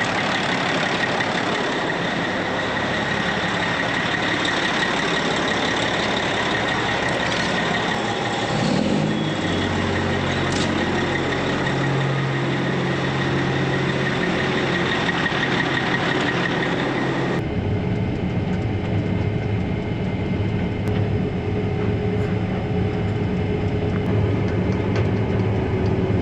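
Heavy vehicle's engine running steadily, heard from the cab. About 17 seconds in the sound changes abruptly, the higher hiss dropping away while the low engine hum carries on.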